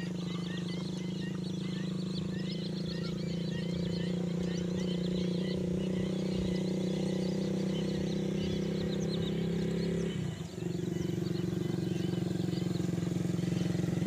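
A steady low drone with overtones, which drops out briefly about ten seconds in and then resumes. Over it, many small birds chirp rapidly during the first half.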